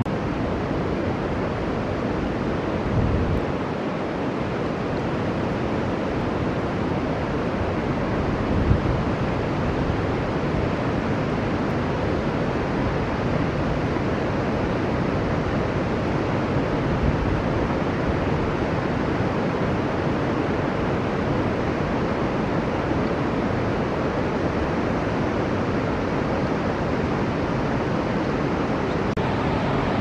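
Steady rushing of river water, an even noise with no bird calls, and two soft low bumps about three and nine seconds in.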